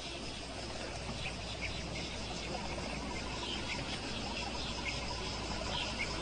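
Crickets chirping steadily, with short faint chirps about once a second over a low steady rumble.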